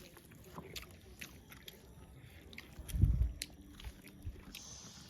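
Close-up eating sounds: chewing and biting with scattered small mouth clicks, and a dull low thump about three seconds in.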